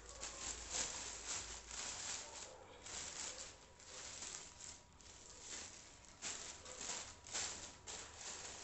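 Thin plastic carry bag rustling and crinkling in irregular bursts as hands work a woven palm-leaf basket out of it.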